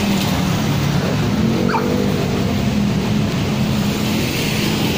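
Street traffic noise with a steady low engine hum, and one brief high yelp about a second and a half in.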